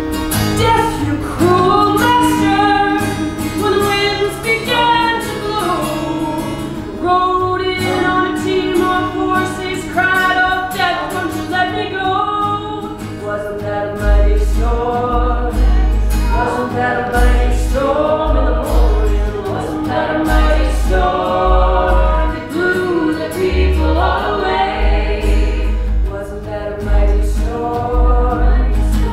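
A woman sings into a microphone, joined by other voices in harmony. From about halfway through, a low thudding beat comes in under the singing.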